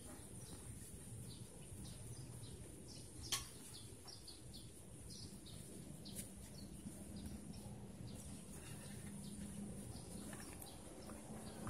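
Faint background of small birds chirping on and off, over a thin steady high tone and low rumble. A sharp click about three seconds in, and a smaller one near the middle.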